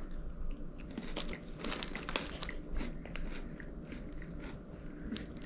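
A crisp chocolate graham cracker being bitten and chewed: irregular small crunches, busiest about one to two seconds in, with another near the end.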